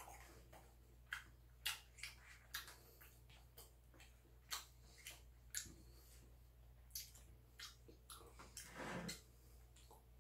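Faint eating sounds: a metal spoon clicking and scraping in a lunchbox of bibimbap, a scattered run of small clicks every half second to second, with soft chewing between them.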